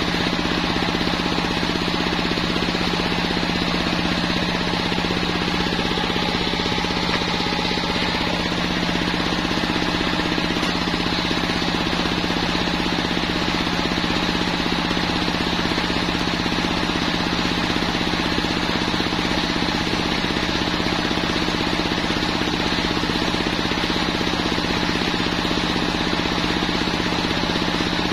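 Home-built circular sawmill running steadily while its large blade rips lengthwise through a Jenitri log: an even drone with a fast, regular pulse that does not change.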